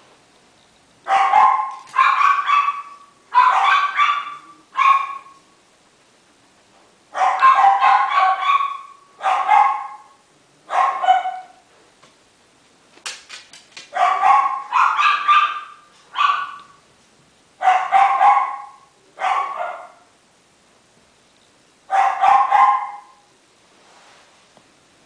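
Four-week-old Miniature Schnauzer puppy barking in high-pitched yaps, repeatedly, in short runs of two or three with pauses between.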